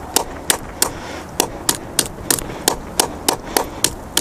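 Hatchet chopping off the excess stick ends of a juniper bath broom's handle: quick, sharp blows, about three a second.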